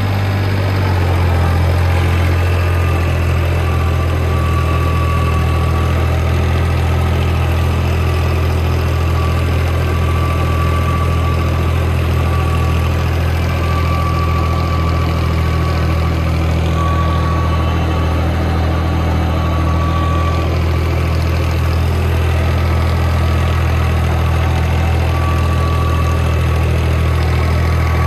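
Tractor diesel engine running steadily at a constant speed, with a faint high whine that comes and goes.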